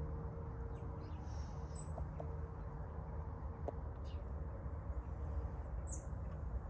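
Outdoor ambience: a steady low rumble with a few short, high bird chirps, about two seconds in and again near the end.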